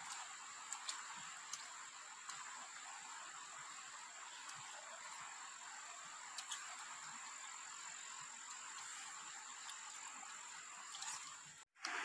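Steady chorus of insects and frogs with a high, unbroken whine, and a few small sharp clicks of boiled-egg shells being cracked and peeled by hand. The sound cuts out for a moment near the end.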